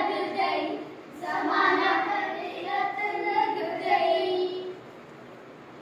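Children singing a song, with held notes. The singing stops near the end, leaving faint background noise.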